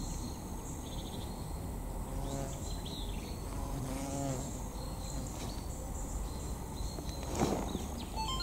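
Crickets chirping in steady high-pitched trills, with a single short knock about seven and a half seconds in.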